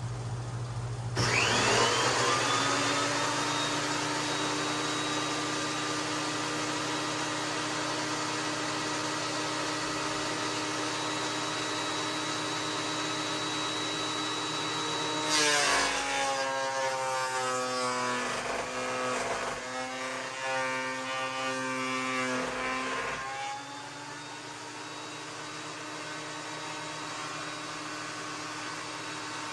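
Ridgid 13-inch thickness planer switched on about a second in, its motor winding up to a steady high whine. About halfway through, a chainsaw-milled plank is fed in: the cutterhead bites with a loud cutting noise and the motor's pitch dips and wavers under load for about eight seconds, then it returns to running free.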